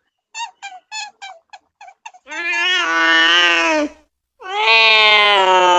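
Cat meowing: a quick run of short, high mews in the first two seconds, then a long drawn-out meow, and a second long meow starting about four and a half seconds in.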